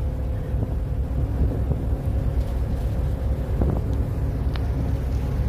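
Harbour ferry under way: a steady low rumble from its engines and wash, with wind buffeting the microphone and a faint steady hum.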